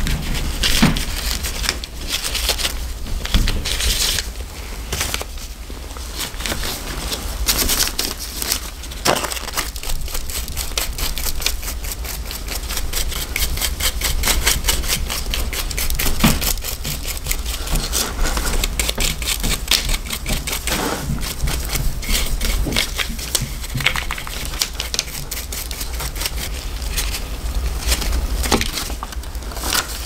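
Small brush scrubbing hair and grime out of the open housing of a 1950s Wahl barber hair clipper: quick scratchy bristle strokes with handling clicks, over a low steady hum.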